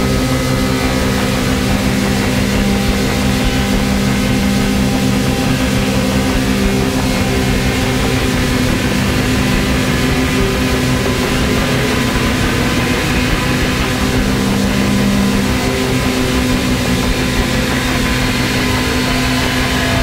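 Experimental electronic music played live: a dense, unbroken drone of several held low tones under a wash of noise, from electronic instruments.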